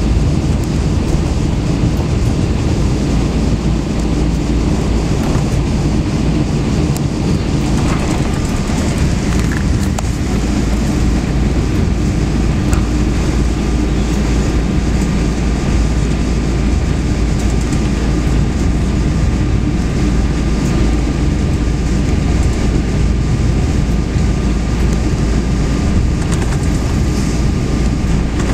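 Steady cabin noise of a Boeing 777-200ER moving on the ground: a loud, even rumble of the running engines and airframe. A thin steady high hum joins about twelve seconds in.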